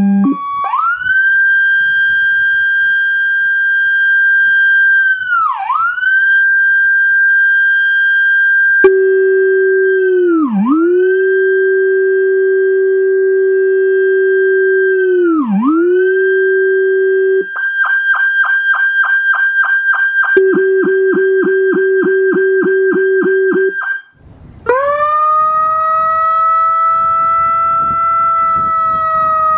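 Whelen Carbide electronic siren stepping through its tones: after the tail of a two-tone hi-lo, a steady high wail dips sharply in pitch about every five seconds. The same wail then plays with the Howler low-frequency speaker's deep second tone beneath it, followed by a fast pulsing tone of about four pulses a second, with the low tone joining partway. After a brief break it switches to a mechanical wail, a rising tone with a low rumble beneath that sinks slightly near the end.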